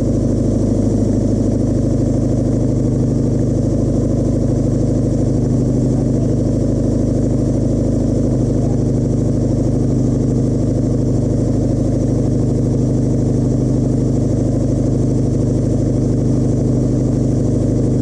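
Mazda MX-5's freshly fitted replacement four-cylinder engine running steadily at an even speed, the new engine now firing and holding on its own.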